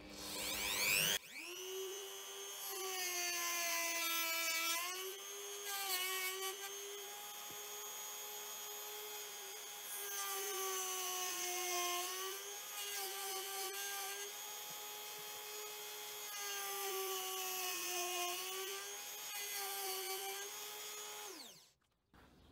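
Rotary tool rigged as a tool post grinder, spinning a small grinding stone against the flutes of a dull end mill to sharpen it. A steady high motor whine spins up in the first second, dips slightly in pitch a few times as the stone takes load, and winds down near the end.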